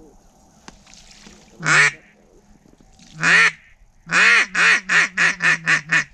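A hand-blown duck call sounding mallard hen quacks close by. It gives two single loud quacks, then a run of about eight quacks that get shorter and quicker, a call meant to draw in circling ducks.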